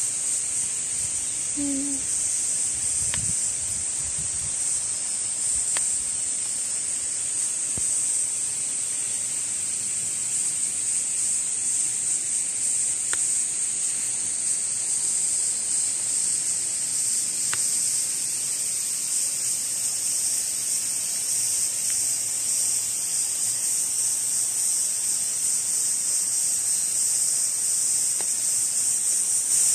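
Dense summer chorus of cicadas (semishigure), a steady high-pitched shrill from overhead with no break. A few faint ticks sound now and then beneath it.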